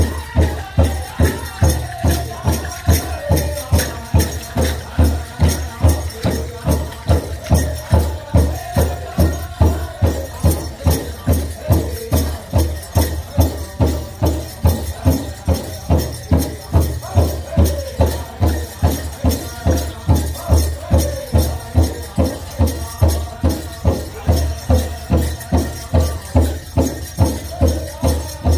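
Powwow big drum struck by a drum group in a steady beat of about two strokes a second, with the group singing a high-pitched chicken-dance duck-and-dive song over it. Dancers' leg bells jingle along with the beat.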